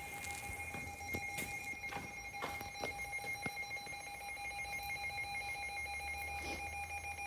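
Midland WR-300 weather radio sounding its shrill electronic alert alarm, a steady fluttering tone, as a tornado warning comes in. Rain is heard behind it, with scattered sharp ticks.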